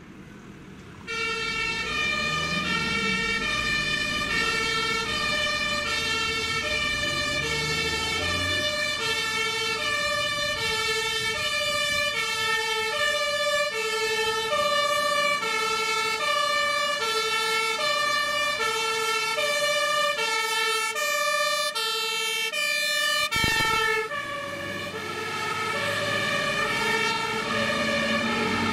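German fire engine's two-tone siren (Martinshorn) switching on about a second in and alternating steadily between a high and a low tone, with the truck's engine running underneath. Brief break near the end.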